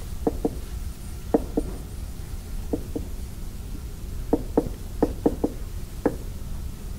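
About a dozen short, irregular clicks and taps of writing on a lecture-room board, over a low steady room hum.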